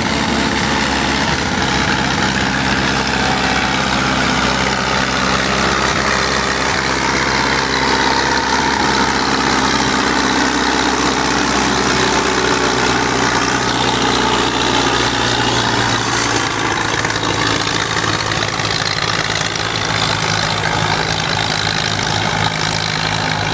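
1955 Minneapolis-Moline UB Special's four-cylinder diesel engine running steadily under heavy load, pulling a weight-transfer sled; its pitch dips slightly and comes back up about midway.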